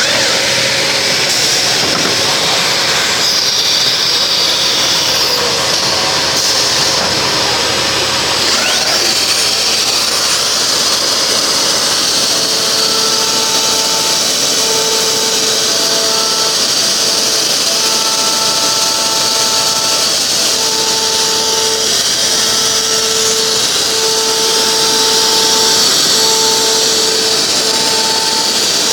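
CNC composite panel machining centre running with a loud, steady high-pitched hiss. From about halfway, a pitched motor hum switches on and off in short and long stretches.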